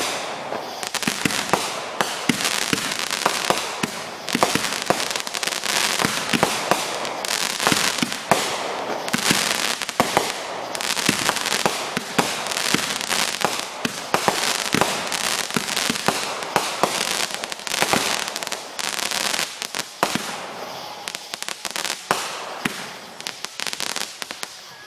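Aerial fireworks going off in rapid succession: a dense, continuous crackling of many sharp pops as the shells burst into crackling stars.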